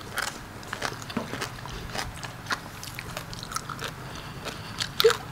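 Close-miked mouth sounds of people chewing a spicy raw-shrimp salad with fresh vegetables: irregular wet clicks and small crunches. A brief vocal sound comes near the end.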